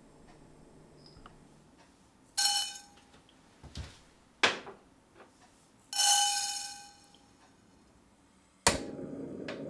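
A dry wok ringing twice as spices are tipped into it, fennel seeds first and mustard seeds second, with a few lighter clicks between the two rings. Near the end comes a sharp snap, then a steady low rushing noise.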